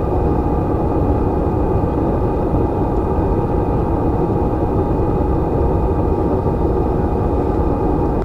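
Steady engine drone and rumble from a running vehicle, with a few faint steady whining tones above it and no change in pitch or level.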